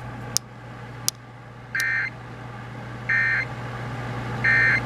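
Emergency Alert System end-of-message code off a radio: three short warbling digital data bursts about a second apart, the signal that closes the alert. A steady low hum runs underneath, with two brief clicks before the first burst.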